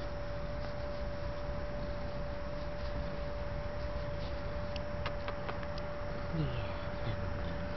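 Domestic cat purring while its head is stroked, heard under a steady high-pitched tone that does not change. A few faint clicks come about five seconds in.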